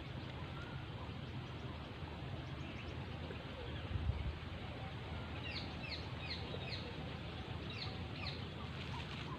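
A bird calls a run of short, falling notes, roughly two or three a second, over steady outdoor wind rumble. A single low thump of handling noise about four seconds in, as the fishing rod and reel move next to the microphone.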